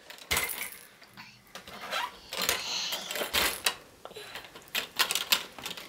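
Plastic baby activity toy clicking and rattling as it is handled, a run of irregular clicks and knocks.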